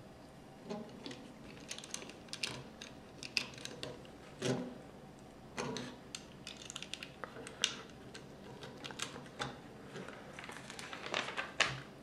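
Plastic Lego bricks being handled and pressed onto a model, giving irregular small clicks and snaps, with a sharper snap near the end.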